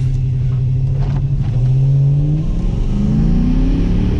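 Commodore's 5-litre V8 accelerating, heard from inside the cabin: the engine note holds steady, then climbs in pitch over the last couple of seconds as it pulls.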